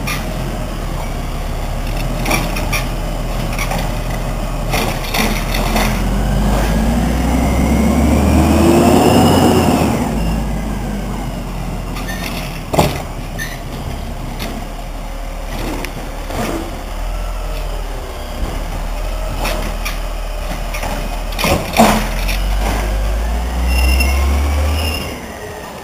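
Diesel engine of a Peterbilt automated side-loader garbage truck with a Wayne Curbtender body, running steadily and revving up twice as its hydraulic arm works, with a few sharp knocks from the arm and cart.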